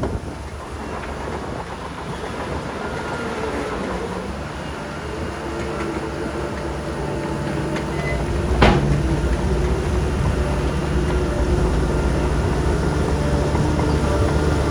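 Heavy earthmoving machinery working: a diesel engine running steadily and growing louder, with one sharp clank a little past halfway.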